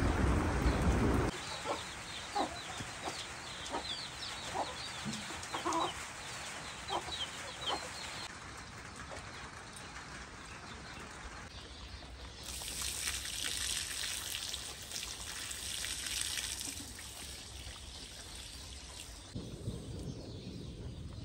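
Chickens clucking, a string of short calls every half-second or so for several seconds, with small high chirps above them. Later comes a steady hiss for a few seconds, and near the end a low rushing noise.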